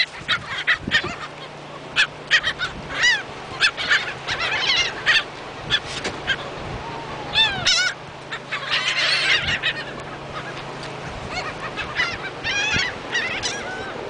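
A flock of laughing gulls calling, many overlapping series of short nasal notes that come in clusters throughout, with the densest bouts in the first few seconds, around the middle and near the end.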